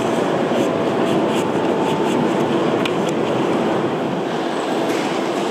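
Train in motion: a steady running rumble with faint steady tones and a few light clicks.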